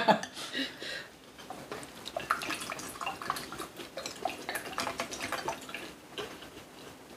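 Quiet eating sounds at a meal: chewing and utensils, a scatter of small soft clicks.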